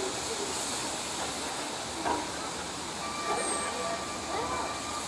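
Steam locomotive (LNER D49 4-4-0 'Morayshire') hissing steam as it moves slowly, an even hiss throughout. A faint steady high tone joins about three seconds in, with distant voices.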